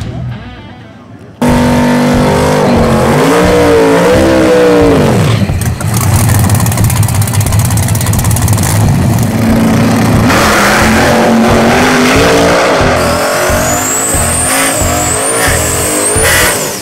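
Drag-racing car engine, very loud, starting abruptly about a second and a half in. It revs up and down, then pulls with its pitch rising steadily as the car accelerates hard. A high whine climbs near the end.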